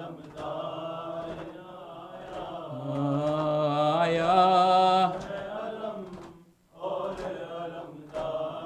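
Male voices chanting an Urdu noha refrain in mourning, with faint rhythmic chest-beating (maatam) strikes about once a second. The chant breaks off briefly about two-thirds of the way in.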